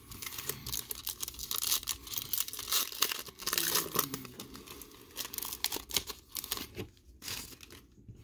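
Cellophane wrapper of a trading-card pack being torn open and crinkled by hand, a run of crackles that dies down near the end.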